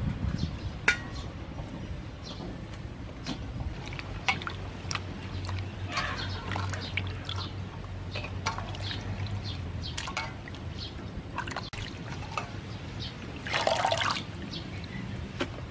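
Water splashing and dripping in a stainless steel bowl as leafy herbs and vegetables are washed by hand, with many small splashes and one louder splash near the end.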